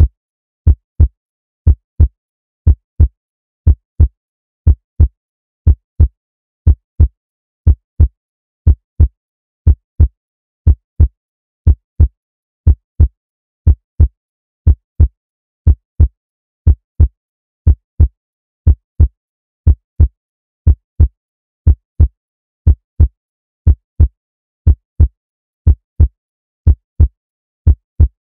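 Heartbeat sound effect: a steady lub-dub of low thumps, about one double beat a second.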